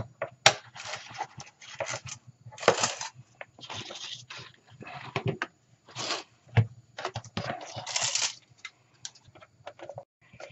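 A strap clamp's metal buckle is released with a sharp click, then the webbing slides free and the Bakelite radio cabinet is handled, with irregular scraping, rustling and light knocks against cardboard.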